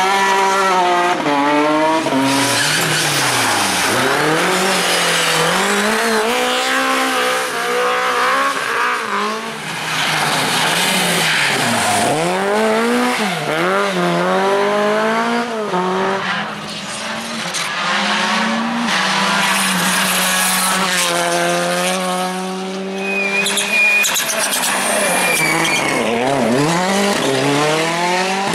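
Rally car engine driven hard, revving up and dropping back again and again through gear changes and lifts for corners, held at a steady pitch for a few seconds in the middle, with tyres squealing briefly near the end.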